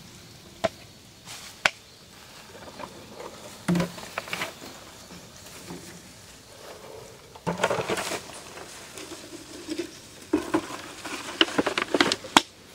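Fishing gear being handled and packed up: irregular light clicks, knocks and rustling, bunching up a little past halfway and again near the end.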